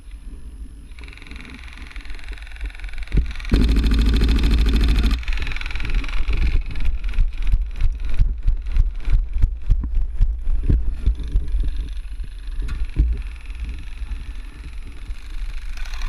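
An airsoft electric gun (AEG) firing a full-auto burst of rapid, evenly spaced shots about three and a half seconds in, lasting about a second and a half. Sharp irregular knocks and clatter follow for several seconds after.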